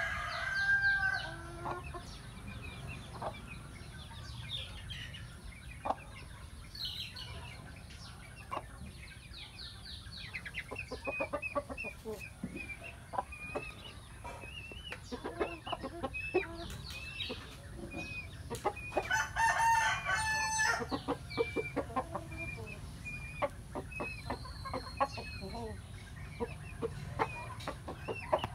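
Cuban-breed chickens clucking and calling, with short high chirps repeated through the middle and a rooster crowing once about twenty seconds in.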